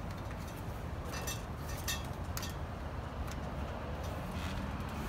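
A handful of light clicks and taps from greenhouse-kit frame tubes being handled and pushed into their connectors, over a steady low background hum.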